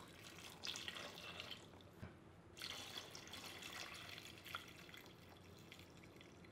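Faint splashing of water poured from a plastic container into an Instant Pot's stainless steel inner pot over green peanuts. The pour eases off briefly about two seconds in, then goes on.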